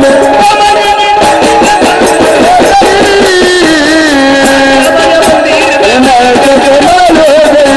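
Marathi vaghya devotional folk music: a melody that bends and glides in pitch over held notes, with a steady beat of percussion strokes underneath.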